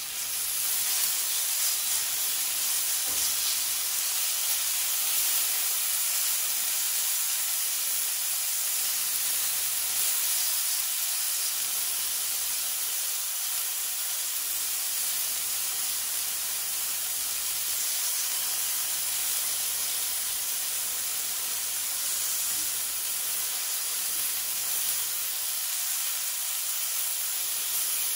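Chopped bacon sizzling in a dry cast iron pan, a steady hiss as it starts to render its fat without any added oil.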